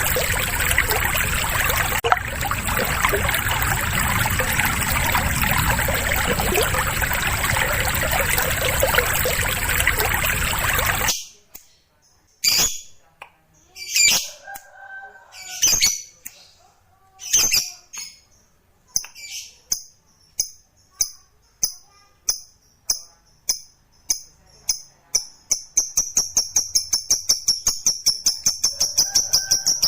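For about the first eleven seconds, a steady rushing noise with a thin high whine, which then cuts off suddenly. A lovebird follows with sharp, high chirps, spaced at first and then coming faster and faster. From about 26 seconds they run into a rapid, continuous chattering trill, the long 'ngekek' song.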